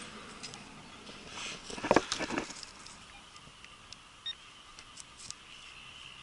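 A short run of knocks and scrapes about two seconds in, the loudest thing here. A Garrett AT Pro metal detector gives one short electronic beep past the middle.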